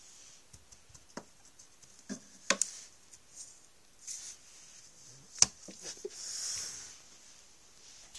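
Hands handling plastic dolls and dollhouse furniture: scattered light clicks and taps, a sharper knock about five and a half seconds in, and a soft rustle just after.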